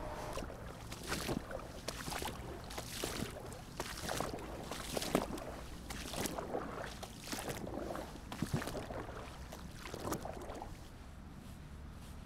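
Repeated swishes and splashes of water, roughly one every half second to second, dying away near the end.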